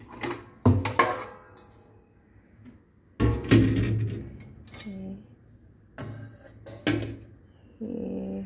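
Stainless steel pan and steel utensils clanking and clattering as they are taken out of a plastic dish rack, with several separate metal knocks, some ringing briefly; the loudest clatter comes about three seconds in.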